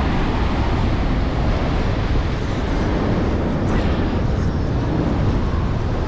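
Wind buffeting the microphone over the steady wash of surf breaking on the beach.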